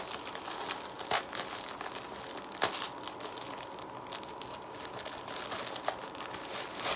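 Package wrapping paper being torn open and crumpled by hand: continuous rustling and crinkling, with a few sharp, loud crackles and rips in the first three seconds.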